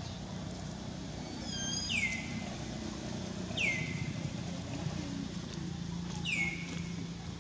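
Three short, high animal calls, each sliding down in pitch, spaced a couple of seconds apart, over a steady low engine hum.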